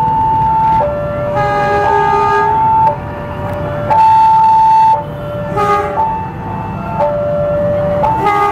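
Railway level-crossing warning alarm: an electronic two-tone signal alternating high and low about once a second, with a second, lower two-tone sounding out of step over it in short stretches, warning that a train is approaching.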